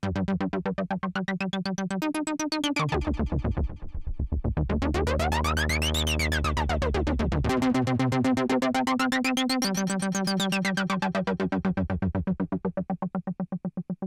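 Novation Summit hybrid synthesizer playing a fast repeating sequenced pattern over changing bass notes, with a resonant filter sweep that rises to a peak midway and falls back. The pattern fades out near the end.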